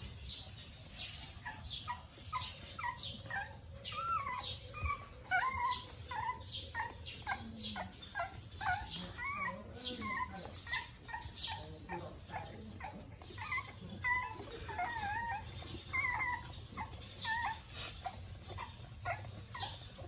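Young puppies whimpering and squeaking as they suckle from their mother: a busy run of short, high, wavering squeals, one after another.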